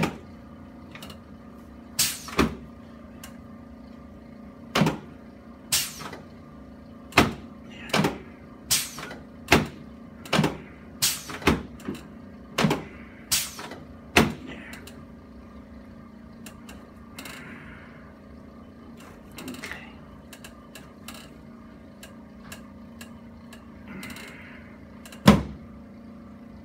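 A series of sharp clicks and knocks, about one a second for some twelve seconds, during a chiropractic treatment of the back. After a pause with faint rustling comes one louder knock near the end.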